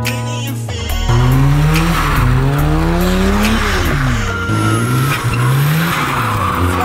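Mazda RX-7 drifting: the engine revs up and down several times and the tyres squeal. It starts loudly about a second in.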